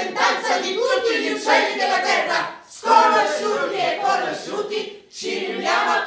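Several actors' voices singing together unaccompanied, in phrases broken by short pauses about two and a half and five seconds in.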